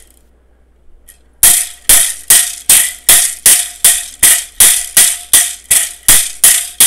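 A pair of pu'ili, Hawaiian split-bamboo hula sticks, struck against each other in a steady beat of a little over two sharp clacks a second, starting about a second and a half in. They are tapped toward the middle to upper part of the split ends, not at the base, to give their full sound.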